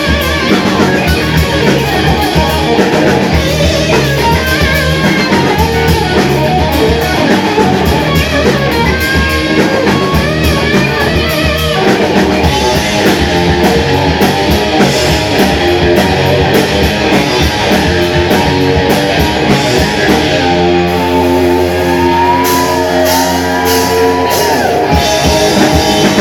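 Rock band playing with electric guitar and drum kit. About 20 seconds in, the band settles into a long held final chord with cymbal crashes.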